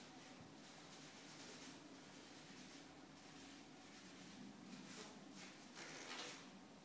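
Faint scratchy strokes of a paintbrush on canvas, about one a second, the loudest near the end, over a steady low room hum.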